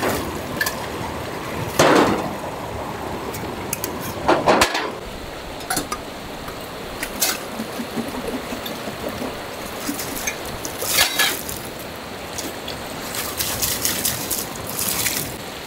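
Water splashing and pouring out of glass jars as they are dipped and rinsed in a flowing stream, over the steady rush of the stream, with a few short light knocks in between. Four louder splashes stand out, about 2, 4½, 11 and 15 seconds in.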